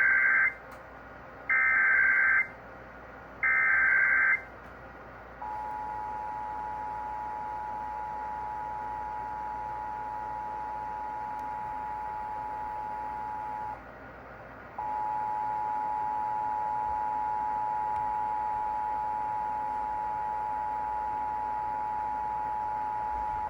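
Emergency Alert System signals: three short bursts of buzzing SAME data tones encoding the alert header. Then comes the steady two-tone EAS attention signal, which breaks off for about a second and resumes slightly louder.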